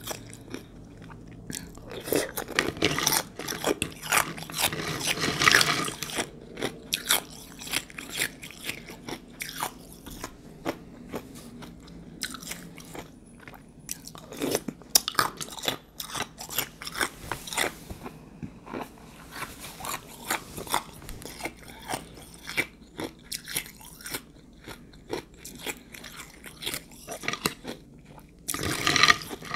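Close-up crunching and chewing of ice soaked in juice, irregular sharp crunches in clusters with quieter chewing between, the loudest bursts about a few seconds in, near the middle, and just before the end.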